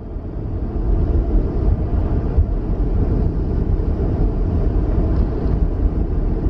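Steady low rumble inside the cockpit of an Airbus A300-600 rolling along the runway after landing: engine, airflow and wheel noise with no distinct events.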